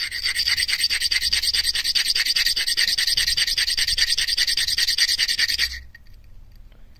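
Blue dendritic opal being ground by hand against a fine-grit knife-sharpening stone: rapid, even back-and-forth scraping strokes, several a second, shaping the stone into a cabochon. The strokes stop abruptly near the end.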